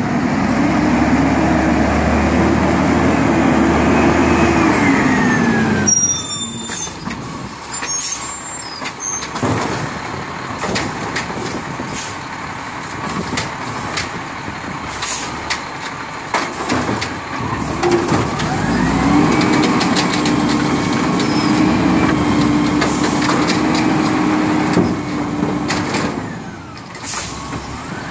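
Automated side-loader garbage truck at the curb. Its engine speeds up and holds a steady higher pitch for several seconds, then drops back. Sharp clanks and hisses from the truck follow, and about two-thirds of the way through the engine speeds up and holds again, as it does to drive the hydraulic lifting arm.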